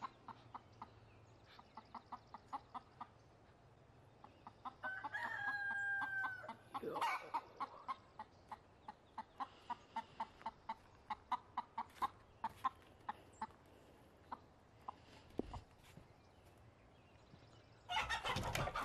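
Chickens clucking in short repeated calls, about two a second, with one held call, typical of a rooster crowing, about five seconds in. A burst of louder commotion comes near the end.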